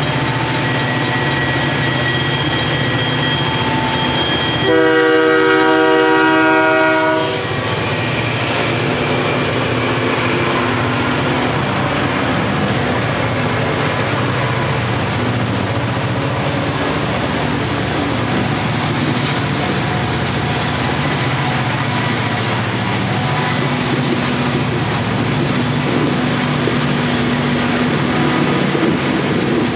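Freight train led by EMD diesel locomotives, their engines droning as they approach. About five seconds in comes one loud horn blast of about two seconds. The locomotives then pass close by, followed by the steady wheel-and-rail rumble of freight cars rolling past.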